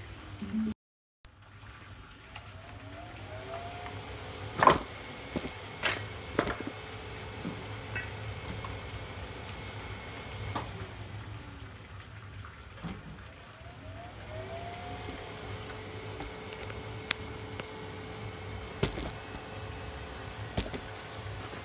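Grease burning inside a Weber SmokeFire pellet grill: a steady sizzle with scattered sharp pops and crackles, the loudest about five seconds in.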